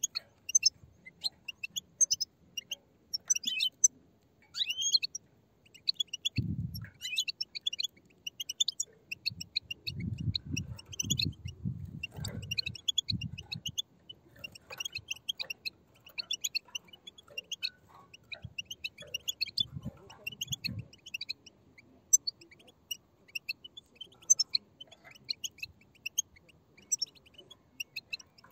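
A group of European goldfinch chicks chirping: many short, high chirps overlapping continuously. Low dull thumps come in about six seconds in, in a cluster between ten and thirteen seconds, and again around twenty seconds.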